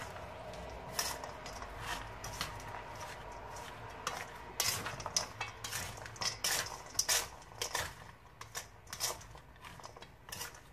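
A spatula scraping and knocking against a stainless steel mixing bowl as chopped chicken, onion, ginger and chili are tossed together: a run of irregular scrapes and clinks, busiest and loudest in the middle.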